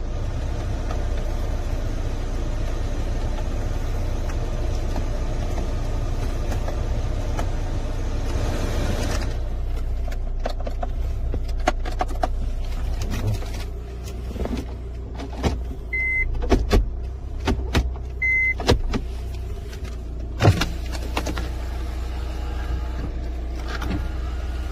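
Cabin of a Hyundai Tucson ix turbo diesel with the engine idling as a steady low hum, and the ventilation blower hissing until it is switched off about nine seconds in. After that come scattered clicks of dashboard buttons, two short high beeps a couple of seconds apart, and a louder click about twenty seconds in.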